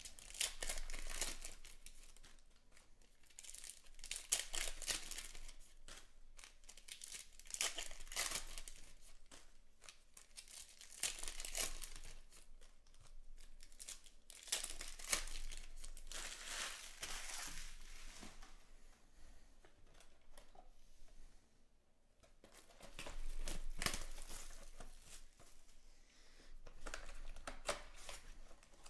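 Foil wrappers of 2020 Panini Select Baseball packs crinkling and tearing as they are ripped open by hand, in repeated bursts with short pauses.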